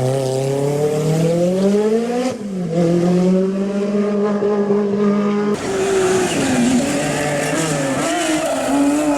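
Rally car engine at full throttle, its pitch climbing, then dropping sharply at a gear change about two seconds in and climbing again. About five and a half seconds in, the sound switches abruptly to a wavering engine note with much more hiss.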